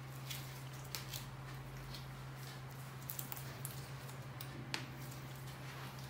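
Soft scattered clicks and rustles of gloved hands handling a person's forearm and wrist, with one sharper click a little before the end, over a steady low hum.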